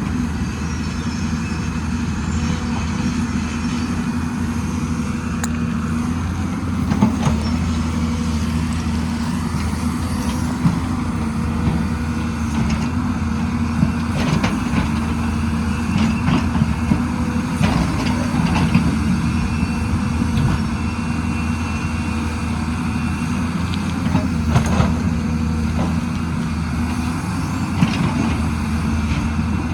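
Excavator's diesel engine running steadily, with occasional sharp knocks scattered through, typical of the bucket and tracks working on rock and soil.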